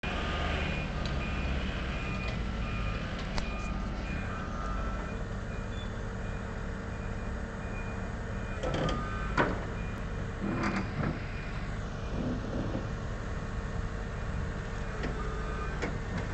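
A heavy diesel engine runs steadily. Over it a repeating high warning beep sounds for the first half, and a few sharp metallic clanks come around the middle.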